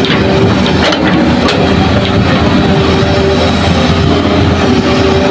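Diesel engine of a loaded dump truck pulling away on a dirt track, running steadily with a low hum. A couple of short clicks come in the first second and a half.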